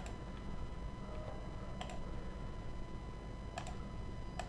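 Four separate sharp clicks of a computer mouse and keyboard, over a faint steady electrical hum.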